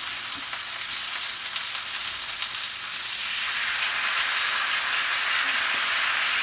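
Salmon fillets sizzling in hot oil in a frying pan, growing a little louder about halfway through as Italian salad dressing is poured into the hot pan.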